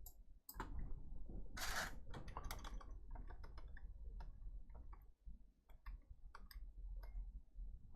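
Irregular small clicks and taps from handling the opened plastic housing and internal parts of an electronic programmer, with a brief scraping rustle about two seconds in.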